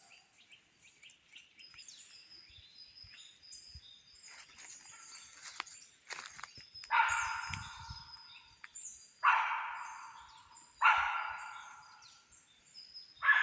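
A dog barking four times, about two seconds apart, each bark trailing off in an echo through the forest.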